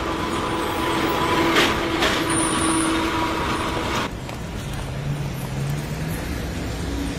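Street traffic noise: a hissing rumble with a steady hum that changes abruptly about four seconds in to a quieter, lower drone.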